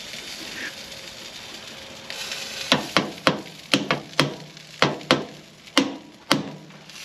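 Burger patties sizzling faintly on a grill, then from about three seconds in a run of about nine sharp knocks, roughly two a second, as a basting brush taps against the metal grill grates while sauce is dabbed onto the patties.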